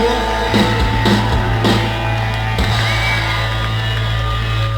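Loud live rock music from a band on stage, heard through a phone's microphone: a heavy, steady bass drone with a few drum hits.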